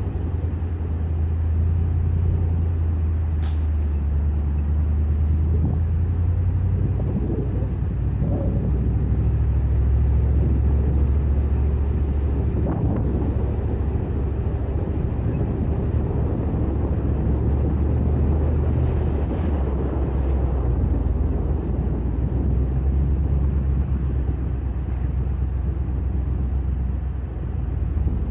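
Ford Raptor pickup driving on a dirt trail: a steady low engine and drivetrain rumble, with a single knock about thirteen seconds in.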